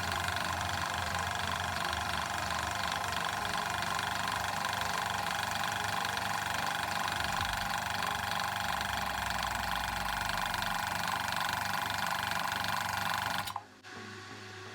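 Hill EC-3000 high-pressure PCP compressor running steadily while filling an air pistol, then shutting off suddenly near the end as the fill finishes at the set pressure, leaving only a quieter hum.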